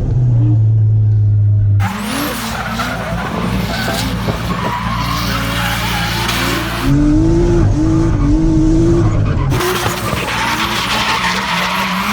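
Drift cars on asphalt: engines running at high revs while the tyres skid and squeal. The sound changes abruptly a few times: a steady engine note, then hissing tyre noise, a louder stretch of wavering engine revs, and tyre noise again.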